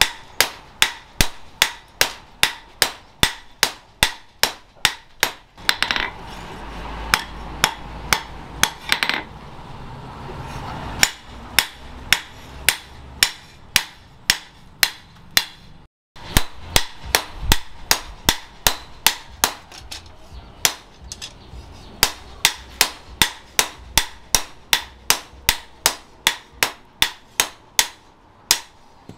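Hand hammer striking a red-hot leaf-spring steel knife blade on a post anvil during hot forging. The blows come in a steady run of about two to three a second, each with a short metallic ring, broken by a couple of short pauses.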